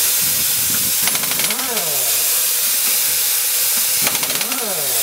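Pneumatic impact wrench on a truck's wheel nuts: steady air hissing, with the tool whirring up and back down twice.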